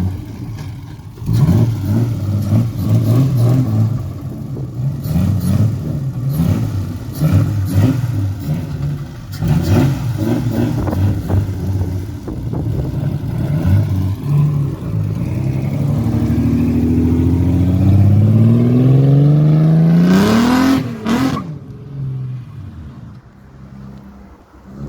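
BMW E30 spin car's engine revving hard in short, repeated blips, then held in one long climb in revs that cuts off sharply about four-fifths of the way through, leaving a lower, quieter running.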